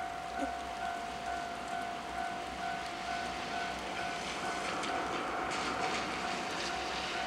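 Japanese railway level-crossing alarm ringing in a steady, rapid repeating beat while rain falls. From about four and a half seconds in, a train grows louder as it passes over the crossing, with clicks from its wheels on the rails.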